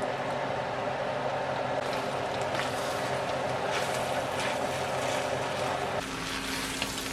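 Steady whirring hum of a kitchen range hood fan, with light sizzling crackles from food cooking in the pot; the hum drops lower abruptly about six seconds in.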